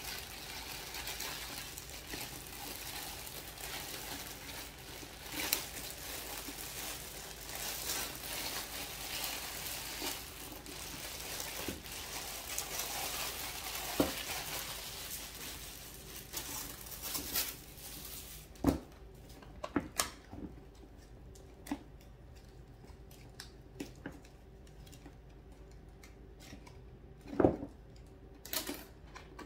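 A thin clear plastic bag crinkling and rustling as a pair of rubber rain boots is worked out of it. About two-thirds of the way through the rustling stops, giving way to quieter handling with scattered light clicks and a few sharp knocks as the boots are set down on a stone countertop.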